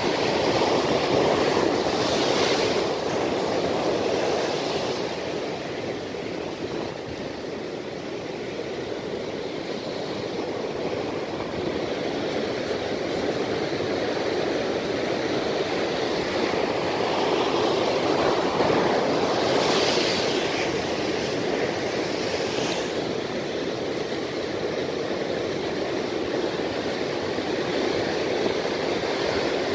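Ocean surf breaking on the shore: a steady rush of foaming water that swells and ebbs, with a few louder hissing surges, the strongest about twenty seconds in.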